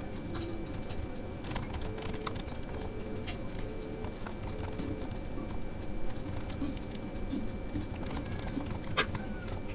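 Computer keyboard typing: irregular runs of key clicks.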